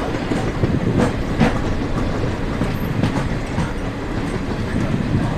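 Train running on the rails, heard from an open coach door: a steady rumble and rush of air with irregular clacks of wheels over rail joints.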